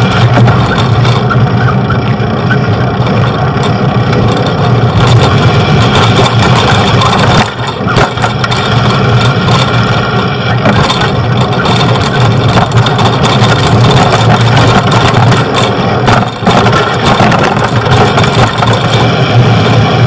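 Steady, loud street noise of motor traffic with engines running, heard from a bicycle moving along city roads.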